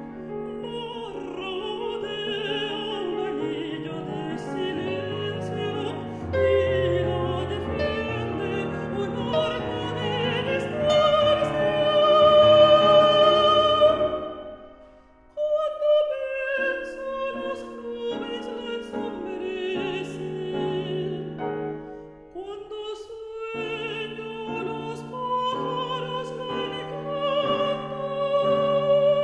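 Mezzo-soprano singing a classical art song with vibrato, accompanied by grand piano. Voice and piano break off briefly about halfway through, the phrase before the break being the loudest, then resume.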